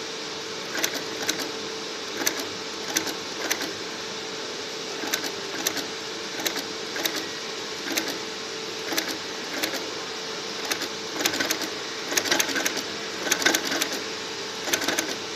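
Industrial sewing machine stitching in short bursts of rapid clatter over a steady machine hum, the bursts coming more often near the end.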